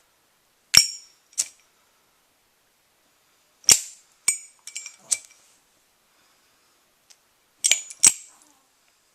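Zippo lighter's hinged metal lid clicking open and snapping shut in quick pairs, three times over, with a few softer ticks after the second pair.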